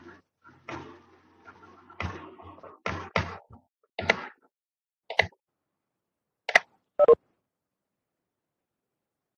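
A run of irregular short knocks and bumps picked up over a video-call microphone, about a dozen in the first seven seconds and then stopping.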